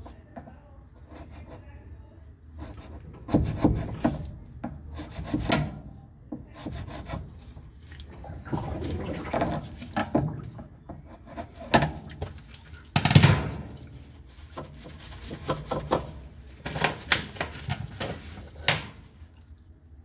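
A screwdriver scraping and prying at a white plastic splined coupler on a GE washer's drive shaft, working it off in irregular rubs, scrapes and sharp clicks. The loudest is a burst about thirteen seconds in.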